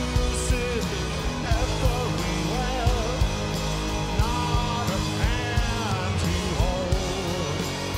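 Rock band playing live: a male lead singer sings over drums and electric guitar, with regular drum hits.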